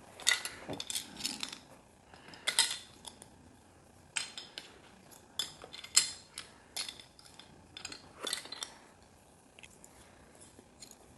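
Plastic Lego pieces clicking and clattering as they are handled and pressed together, in irregular sharp clicks with short rattles.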